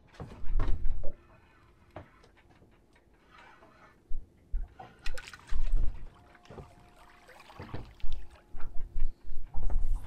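Irregular knocks, splashes and handling noise as a fish is reeled up to a small boat and lifted aboard on the line, with gusts of low rumble on the microphone.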